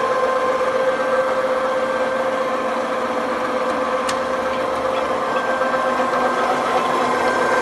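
Pornitz PUN 2 universal milling machine running: a steady mechanical hum with a constant whine, and a single sharp click about four seconds in.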